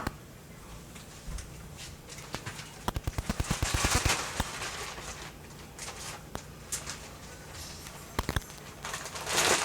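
Utensil stirring and scraping a pan of flour-and-oil roux as it cooks, with a quick run of sharp clicks about three to four seconds in and a few more near the end.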